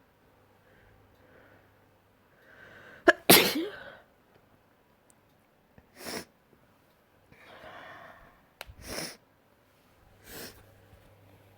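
A person sneezing four times: a drawn-in breath and then a loud, wet sneeze about three seconds in, followed by three smaller sneezes, one of them again after a drawn-in breath.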